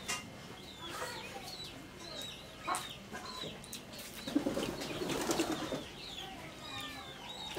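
Small birds chirping over and over in short, falling notes, with chicken clucking between about four and six seconds in. A couple of sharp clicks, like hands or fingers against steel plates, come near the start and near three seconds.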